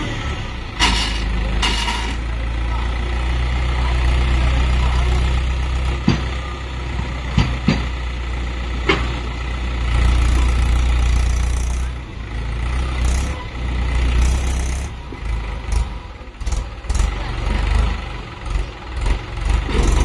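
Mahindra 475 DI tractor's diesel engine running steadily while its hydraulics tip the trailer bed up to dump a load of mud, with a few sharp knocks in the first half. About twelve seconds in, the drone lightens and turns uneven.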